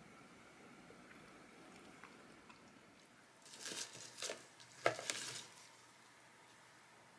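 A gloved hand rustles through leafy radish greens in a plastic colander basket, with a brief crinkling handling noise and one sharp knock about five seconds in. Faint room tone comes before it.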